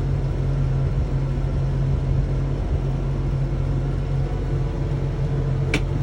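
Engine running steadily at constant speed, a low even hum. A brief sharp click or chirp near the end.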